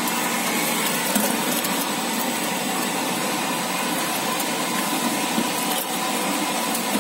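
Automatic juice filling and capping line machinery running: a steady mechanical whir and hum, with a couple of light clicks.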